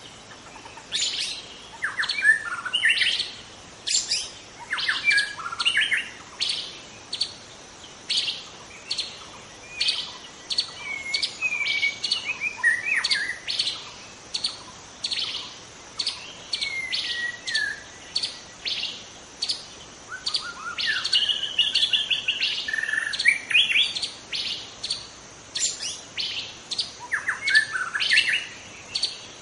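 White-rumped shama of the Medan (Sumatran) type singing: varied whistled phrases with rising and falling glides. Short high notes repeat about twice a second throughout.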